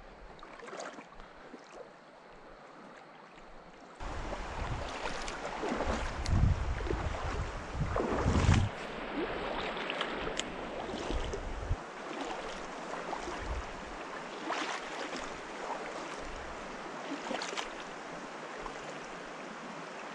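Flowing stream water, a steady rushing hiss that gets suddenly louder about four seconds in. For the next several seconds low rumbling buffets hit the microphone, and later come a few brief splashy crackles.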